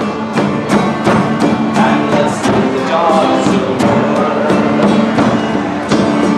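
Instrumental break of a live folk band: two acoustic guitars strumming over held notes, with a percussion instrument keeping a steady beat of about three strokes a second.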